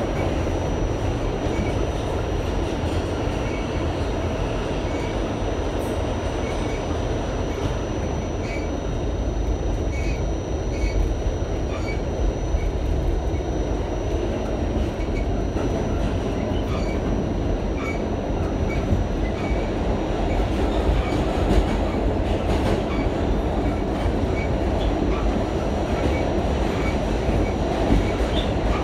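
Inside a New York City subway car on the A line, running between stations: a steady rumble of wheels on rail, with scattered clicks and ticks from the track and a thin, high, steady whine.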